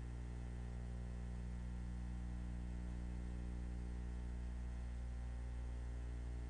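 Steady low hum with a faint hiss, and no other sound: the background noise of a silent film's mute soundtrack.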